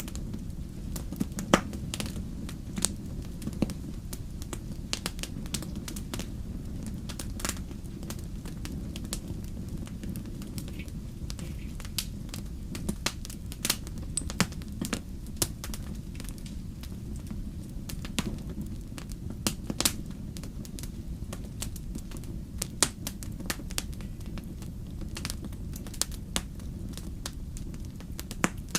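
Wood fire in a fireplace crackling, with frequent irregular sharp pops over a steady low rumble of the flames.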